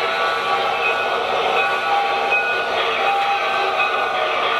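Model steam locomotive running: a steady noise with short, high squealing tones at several pitches scattered through it.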